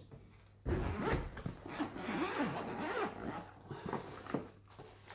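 Zip of a hard-shell camera accessory case being pulled open around its edge in a run of uneven strokes, starting just under a second in and lasting about four seconds.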